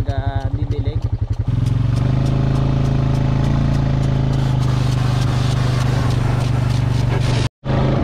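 Farm vehicle engine running while driving: a fast pulsing note at low revs, then a steadier, stronger note at higher revs from about a second and a half in. The sound drops out for an instant near the end.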